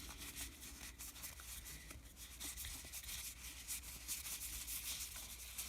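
Faint rustling and light scraping of baseball cards being handled and slid against one another, with small scattered clicks.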